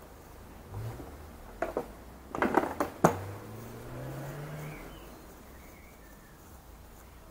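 Clicks and rattles of things being handled in a Honda CBR600 F4i's under-seat compartment, a cluster about two to three seconds in that ends in one sharp click. After it a faint low hum rises slowly in pitch for a second or two.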